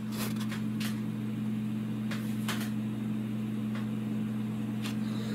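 A steady low hum, with a few faint clicks scattered through it.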